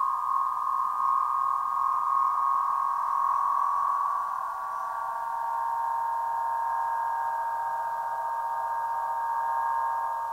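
A 104-inch Aeolian wind harp, its strings sounding in the wind: several high tones are held together like a chord. The mix of tones shifts and eases slightly about halfway through.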